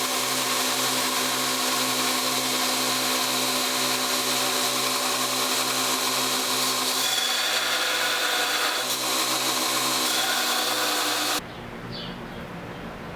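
Belt grinder running with a steel knife blade being rough-ground on the belt: a steady motor hum under a loud grinding hiss. It cuts off suddenly about eleven seconds in, leaving quieter background with a bird chirp.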